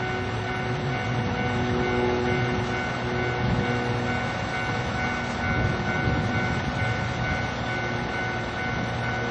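Japanese railway level crossing's electronic warning bell ringing steadily at full volume, as it stays while the barriers are down at this busy crossing. A low rumble swells and fades underneath it.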